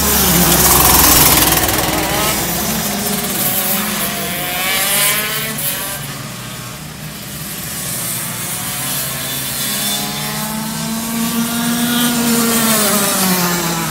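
125 cc two-stroke racing kart engines revving at speed around the circuit, their pitch rising and falling repeatedly. The sound is loudest as a kart passes close about a second in, and swells again near the end.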